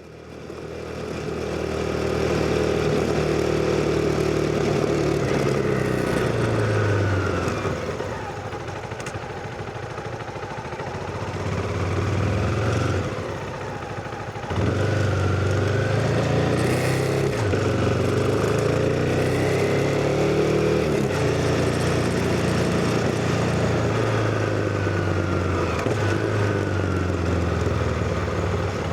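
CF Moto 250NK motorcycle's single-cylinder engine being ridden through the gears, its pitch climbing under throttle and dropping back at each shift. There is a quieter stretch on closed throttle about a third of the way in, and a short one about halfway, before it pulls again. The sound fades in at the start.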